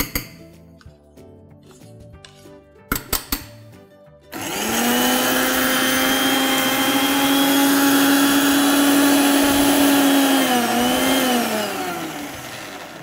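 Electric mixer grinder grinding grated coconut, black pepper and fennel with a little water into a wet masala paste. A few sharp clicks come first. Then the motor starts with a quickly rising whine and runs steadily for about six seconds, wavers briefly and winds down with a falling pitch as it is switched off.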